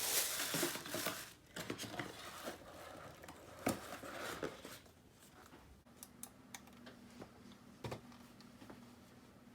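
Keyboard packaging being handled: a burst of crinkling and rustling for about the first second, then scattered taps and small clicks with a sharper knock a few seconds in, growing sparser and quieter toward the end.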